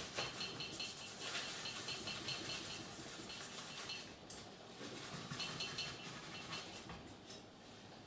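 Paper cloth rubbed rapidly back and forth over a graphics card heatsink's contact plate, wiping off old thermal paste: a dry, scratchy rubbing in two spells, the second shorter.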